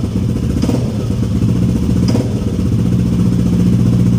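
Yamaha Aerox scooter's single-cylinder engine idling steadily through an aftermarket Yoshimura slip-on muffler, a low, even exhaust note.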